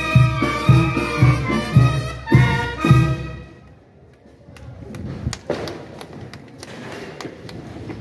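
Band music with a steady low beat, about two beats a second, stops about three seconds in. A quieter background with scattered knocks and clicks follows.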